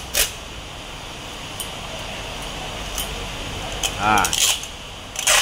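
Aluminium foil tape being handled and pulled over heat-trace cable on a pipe: scattered short crinkles and clicks, over a steady low hum. A brief voice sound comes about four seconds in.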